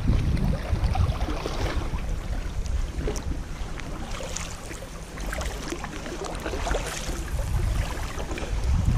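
Wind buffeting the microphone over a low rumble, with small splashes and water lapping around a sea kayak's hull. The wind rumble eases in the middle and builds again near the end.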